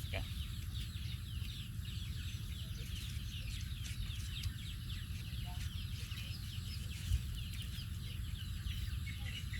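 A dense chorus of many short, high-pitched falling peeps from a group of young animals, calling over one another without pause, over a steady low rumble.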